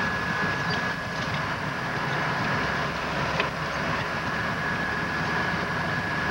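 Snowcat running steadily over deep snow, heard from inside the cab: an even engine and track rumble under light load, with a thin steady whine over it and one small click a little past halfway.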